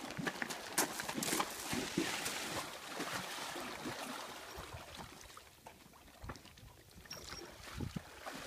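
Horse wading through shallow lake water, its hooves splashing irregularly. The splashing dies down for a couple of seconds past the middle and picks up again near the end.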